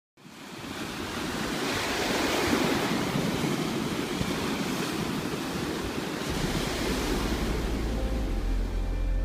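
Ocean surf washing up a beach: a steady rushing that fades in at the start. A low steady drone of music comes in about six seconds in.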